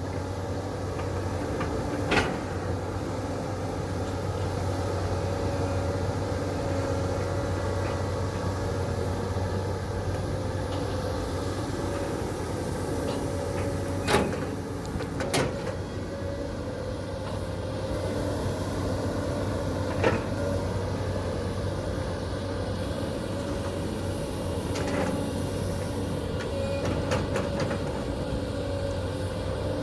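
Caterpillar 320D excavator's C6.4 diesel engine running steadily under work, with a steady higher whine over the low hum. Four sharp metal clanks are spread through it, two of them close together a little past the middle.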